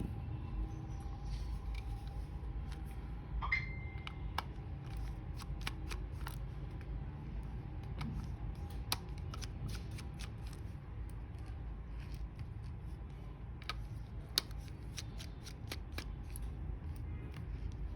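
Scattered light clicks and scrapes of small plastic parts of a wireless mouse being handled, over a low steady background rumble.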